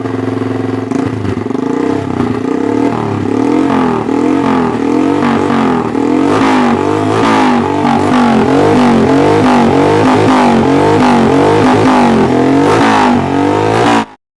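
Small motorcycle engine revved through a loud aftermarket racing exhaust in quick repeated throttle blips, its pitch rising and falling over and over. It cuts off suddenly near the end.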